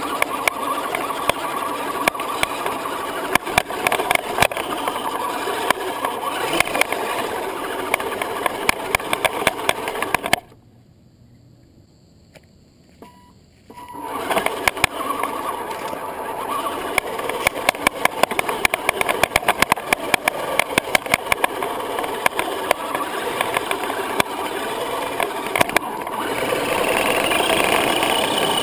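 Electric motor and gear drivetrain of a 1/10-scale Axial SCX10 Honcho RC crawler running, with a busy crackle of clicks and rattles as it drives over mud and dirt. It goes quiet for about three seconds near the middle, then starts up again and runs a little louder near the end.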